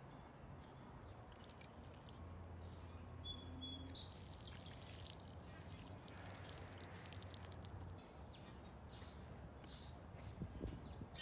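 Faint water pouring from a watering can onto soil, followed near the end by the rustle and crinkle of a fabric row cover being pulled over the bed.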